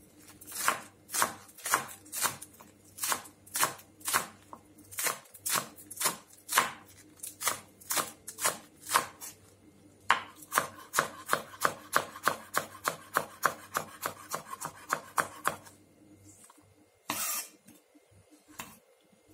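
Green onions being sliced finely with a kitchen knife on a wooden cutting board: steady knocks of the blade against the board, about two a second at first, then quicker at about four a second, stopping near the end with one longer stroke after a short pause.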